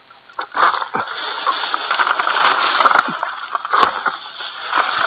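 An egrek pole sickle is pulled through oil palm fronds, with dense rustling and crackling of the leaves. There are several sharp knocks, and a heavier thud about four seconds in as a cut frond drops.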